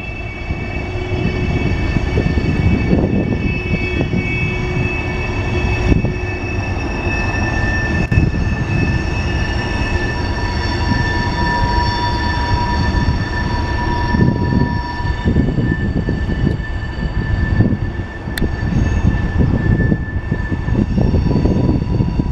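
Freight train cars rolling past on a curve: a steady heavy rumble with irregular clanks from the wheels, and thin high-pitched wheel squeal held over it.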